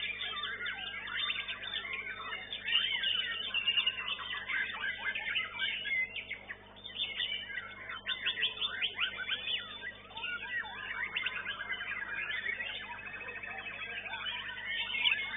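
White-rumped shamas singing: a rapid, varied run of whistles, chirps and sliding notes, several phrases overlapping, with a fast rattling trill after about twelve seconds in.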